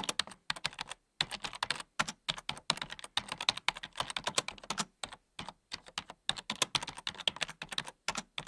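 Computer keyboard typing: rapid, irregular key clicks with a few short pauses. It is a typing sound effect that goes with text being typed out on screen.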